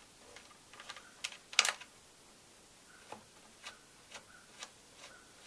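Light, irregular clicks and taps of chainsaw parts being handled while the bar and chain are fitted, the loudest about one and a half seconds in.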